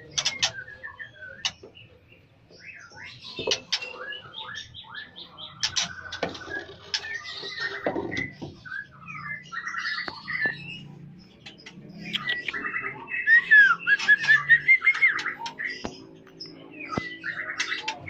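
A flock of lovebirds calling: many high chirps, squeaks and short chattering trills overlapping, loudest about 13 to 15 seconds in.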